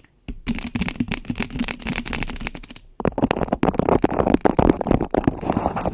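Close-miked ASMR trigger sounds: a dense, rapid run of crackling and clicking right at the microphone. It starts shortly in, breaks off briefly about halfway, then comes back louder.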